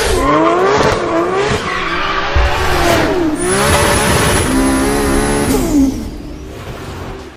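Car chase sound effects: car engines revving, their pitch gliding up and down, with squealing tyres. A high steady whine sounds through the middle, and the sound fades near the end before cutting off.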